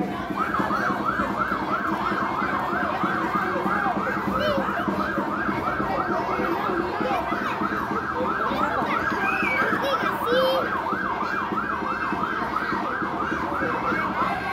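Electronic siren in fast yelp mode, a rising-and-falling whoop repeating about three times a second; it switches in from a slow falling wail about half a second in and back to a slow rising wail at the very end.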